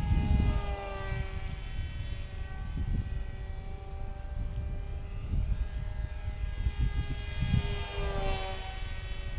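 Electric motor and pusher propeller of an RC foam F-22 whining as it flies by, the pitch sliding down as it passes about a second in and swinging up then down on another pass near the end. An irregular low rumble of wind on the microphone runs underneath.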